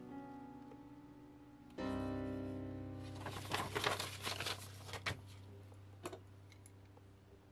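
Slow, quiet music with a low sustained chord that enters about two seconds in. About three seconds in, paper is handled, crinkling and rustling for roughly two seconds; this is the loudest part. A single soft click follows near the end.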